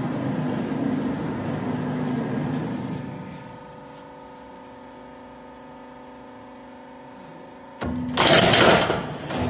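Roofing-sheet roll forming machine running, its rollers forming the steel sheet, then dropping to a quieter steady hum from the motor and hydraulic station about 3.5 seconds in as the forming stops. Near the end a loud, harsh metallic burst about a second long, typical of the hydraulic cutter shearing the formed panel.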